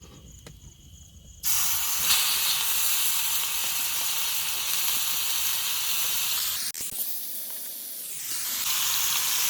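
Fish frying in hot oil: a steady sizzle that starts suddenly about a second and a half in. After a click near seven seconds it thins out for a second or two, then comes back up.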